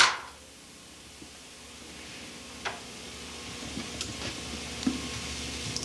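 Room tone with steady tape hiss and a low hum, slowly growing a little louder, broken by a few faint clicks.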